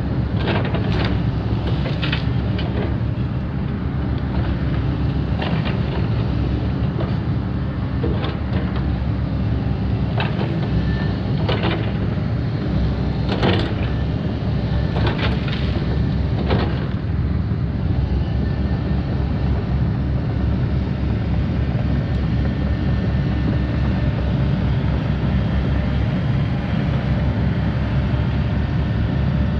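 Takeuchi TB2150 excavator's diesel engine running steadily under load while it digs and swings wet mud, with scattered knocks and clanks from the bucket and boom, mostly in the first half.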